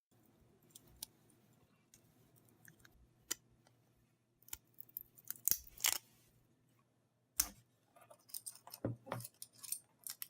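Cutters snipping 3D-printed plastic tree supports off a printed figure: irregular sharp clicks and snaps of plastic being cut and broken away, with the loudest snaps a little past halfway and again near the end.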